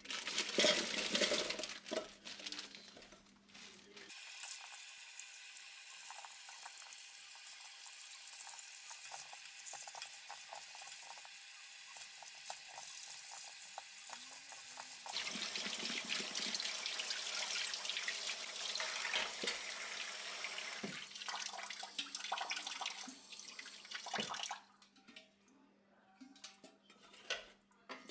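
Kitchen tap running steadily into a sink while baby potatoes are washed and scrubbed by hand under the stream. In the first couple of seconds a plastic bag crinkles loudly as the potatoes are tipped out. The water stops near the end, leaving a few knocks.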